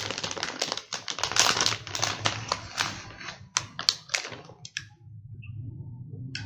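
Metallised anti-static bag crinkling and crackling as a graphics card is slid out of it, a dense irregular crackle that dies away about four and a half seconds in.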